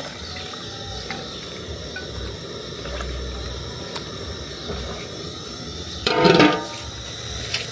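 Large aluminium lid clattering onto an aluminium cooking pot about six seconds in: one short metallic clash with a brief ring, the loudest thing here.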